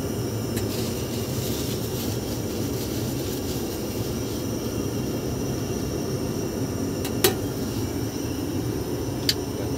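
Steady low cabin noise of an airliner, heard inside its lavatory, with three sharp clicks; the loudest click comes about seven seconds in.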